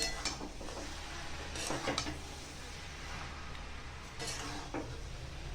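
Cabbage and potato curry frying softly in a kadai, with a few light knocks of metal against the pan.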